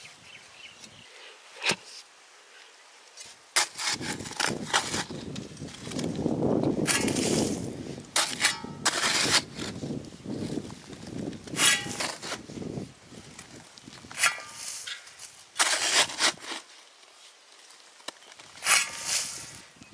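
Hand digging tool striking hard, stony earth at the bottom of a pit: irregular sharp strikes every second or two, with a stretch of rough scraping and crumbling soil and stones in the middle.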